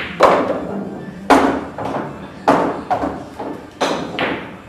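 Carom billiard balls clicking sharply against each other and the cushions, about six hard knocks in irregular succession, each ringing out with an echo in the hall.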